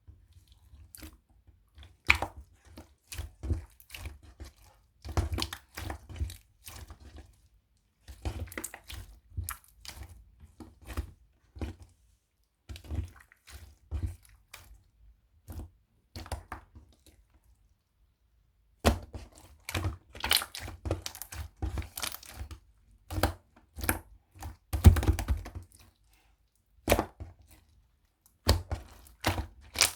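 Beads being handled and pressed by hand: irregular bursts of crisp crunching and crackling clicks, with short pauses between the bursts.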